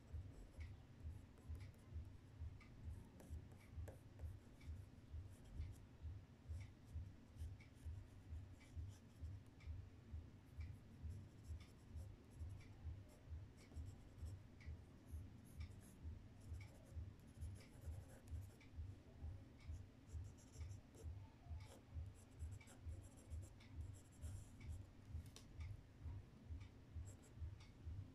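Coloured pencil scratching on black paper in steady, regular strokes, about two a second, faint and close.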